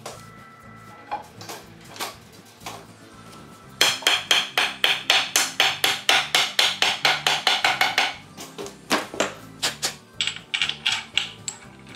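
Background music with a fast percussive beat, dense from about four seconds in and thinning out after about eight seconds.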